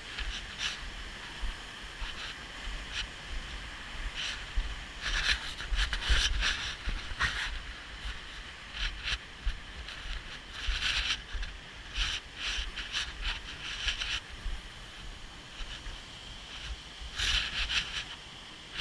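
Wind buffeting the microphone over a steady rush of falling water, with irregular scuffs and rustles every second or so from walking on a wet, slippery rocky path.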